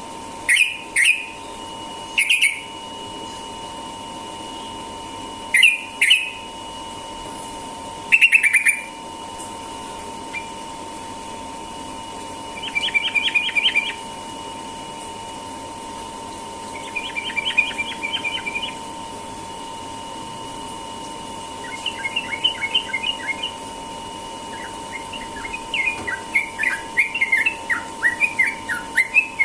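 Yellow-vented bulbul (trucukan) singing: a few loud, short calls at first, then bursts of rapid notes that run together into fast, continuous chattering song near the end, the 'ropel' style of delivery. A faint steady tone sounds underneath throughout.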